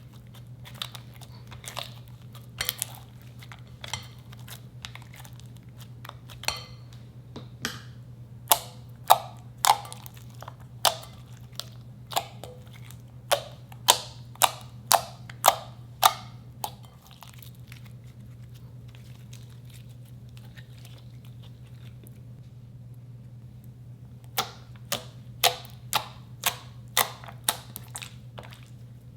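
Slime being pressed and poked by hand, giving runs of sharp, wet clicking pops that come in two bursts, with a quiet stretch in between. A steady low hum runs underneath.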